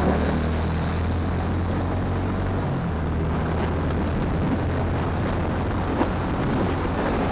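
Stock motorcycle's engine running steadily while riding, with a continuous low hum and wind and road noise.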